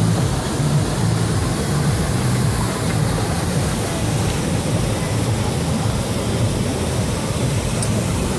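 Steady rushing of water pouring over a river weir and waterfall, a constant deep roar.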